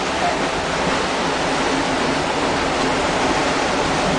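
Steady rush of churned water from a moving boat's wake, with a low engine hum underneath.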